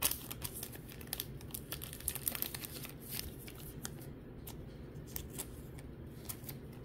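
Baseball trading cards being thumbed through by hand, card stock sliding and flicking against card with light, irregular clicks and rustles.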